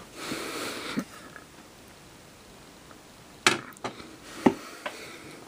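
Handling noise from a toy figure and camera being moved: a short breathy rush near the start, then a few sharp clicks and knocks, about four in a second and a half, past the middle.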